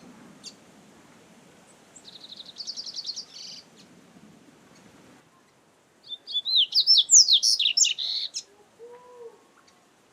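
Double-collared seedeater (coleiro) singing. There is a short rapid trill of repeated high notes about two seconds in, then a louder, faster phrase of quick, varied whistled notes about six seconds in.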